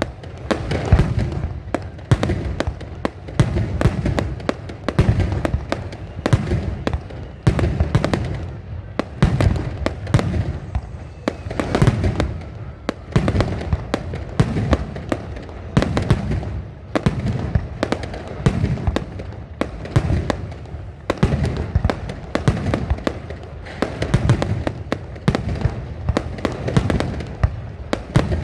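Aerial fireworks going off in a continuous barrage: dense crackling with deep booms every second or two.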